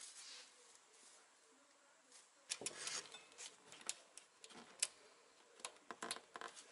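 Chrome single-lever kitchen mixer tap being handled and positioned on a stainless-steel sink deck. Faint for the first couple of seconds, then a run of irregular small metallic clicks and knocks.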